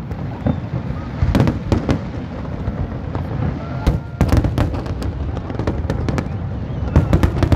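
Fireworks display: aerial shells bursting in irregular clusters of sharp bangs over a continuous low rumble, with a dense run of bangs near the end.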